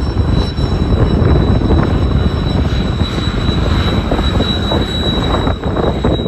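Military aircraft engines running loudly: a steady roar with a high, steady whine on top.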